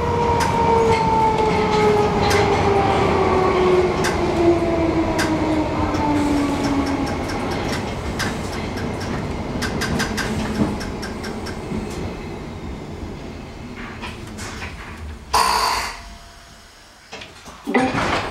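Bakerloo line 1972 Mk2 Stock tube train slowing into a station, heard from inside the carriage. A motor whine falls steadily in pitch over the first seven seconds while the wheels click over rail joints, then the running noise dies away as the train stops. There is a short loud burst of hiss about fifteen seconds in.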